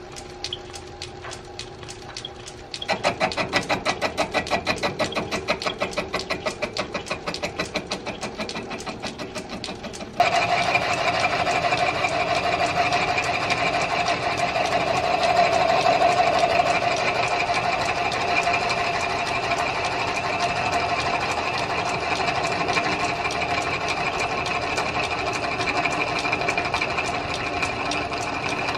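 Metal lathe running while its cutter turns a white oak workpiece. About three seconds in, the cut begins as a quick, evenly pulsing sound; about ten seconds in it jumps to a louder, steady cut with a sustained tone as chips come off.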